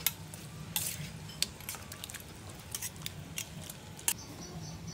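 Raw chicken pieces tipped from a stainless-steel mesh colander into a pot of hot water: scattered sharp clicks and light metallic clinks, over a faint low steady hum.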